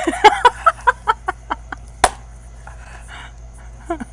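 A person's short, rapid staccato laugh, about five beats a second and fading away within two seconds, followed by a single sharp click.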